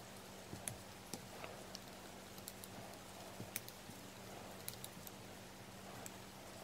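Faint, irregular clicks and taps of wooden circular knitting needles as the hands work stitches of a 1x1 rib in yarn, over a low steady hum.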